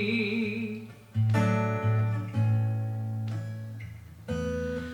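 Live music: a woman's sung note held with vibrato ends about a second in, and then an acoustic guitar strums three chords that ring out and fade between strums.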